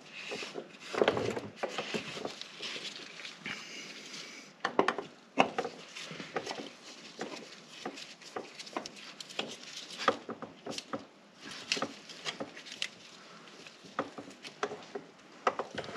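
Scattered clicks, taps and rustling from gloved hands screwing a new transmission filter onto a Kubota BX1870 tractor's transmission, worked from underneath.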